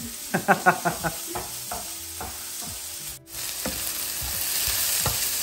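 Sliced onions sizzling in hot oil in a non-stick frying pan while they are stirred with a wooden spatula. After a brief break about three seconds in, the sizzle is louder and steady.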